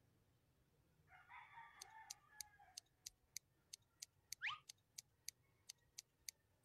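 Faint cartoon haircut effects: barber's scissors snipping in a steady run of sharp clicks, about three a second. Before the snipping, a short rough sound lasts under two seconds, and about halfway through a quick rising squeak cuts in.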